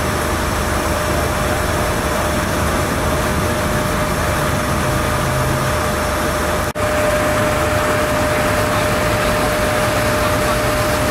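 Fire engines' diesel engines idling with a steady low rumble and a constant thin hum tone, under a broad steady hiss. The sound drops out for an instant a little past halfway, then carries on the same.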